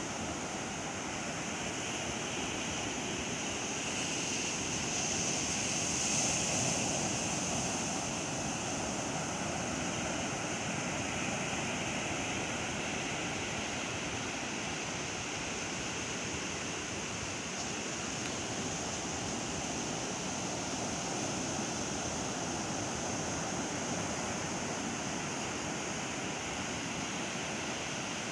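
Sea surf washing onto a sandy beach: a steady rush of breaking waves, swelling slightly about six seconds in.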